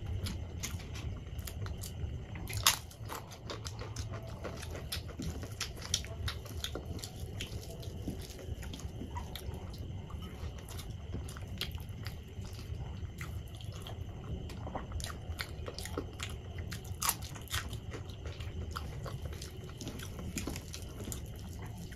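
Close-miked chewing and biting of hand-eaten khichdi, wet mouth sounds with many small sharp clicks and a few louder crunches, the loudest about three seconds in and again near seventeen seconds.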